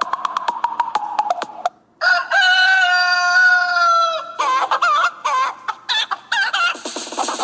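A phone ringtone made from farmyard recordings: a rooster crows once, a long call that falls slightly in pitch, and is followed by a run of short hen clucks. Before the crow, the last second and a half of a different ringtone plays, fast rhythmic taps over a tone, and cuts off.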